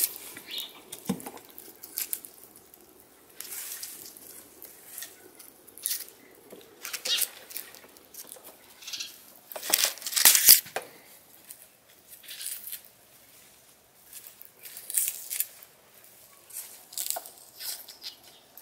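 Dry, papery onion skins rustling and crackling in short, irregular bursts as onions are picked out of a wicker basket of onions and potatoes and handled, with the loudest burst about halfway through.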